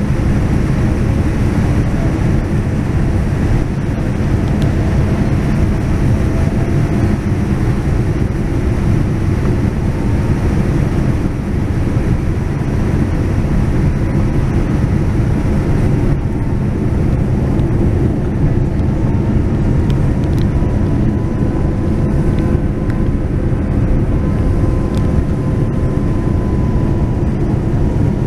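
Inside the cabin of a Boeing 787-9 beside its Rolls-Royce Trent 1000 engine on approach: a steady low roar of engine and airflow, with a faint whine that slowly drifts in pitch.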